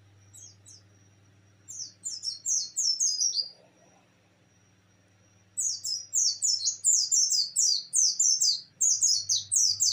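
Caged white-eye (pleci) singing in its 'nembak' style: rapid strings of loud, high notes, each sliding downward, about three a second. A short burst comes about two seconds in and a longer run from about halfway to the end. A faint steady hum runs underneath.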